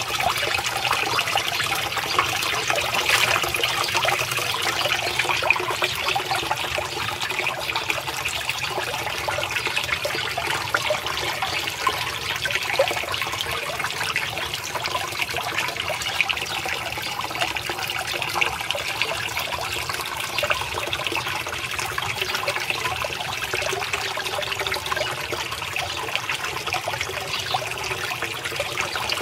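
A small fountain jet splashing steadily into a garden pond, a continuous trickling patter of falling water.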